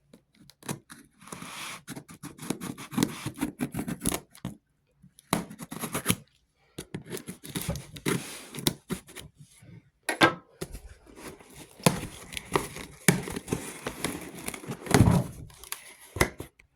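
A cardboard shipping box being cut and opened by hand: scissors snipping through packing tape, then irregular tearing, scraping and rustling of cardboard and packing material, on and off with short pauses.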